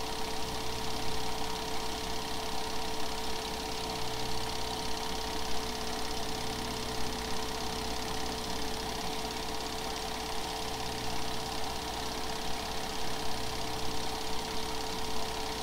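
8mm film projector running, a steady mechanical whir with a constant hum and hiss, the only sound on a silent home-movie reel.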